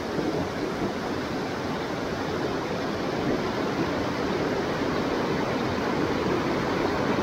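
Steady rushing of a mountain stream's flowing water, growing slightly louder over the few seconds.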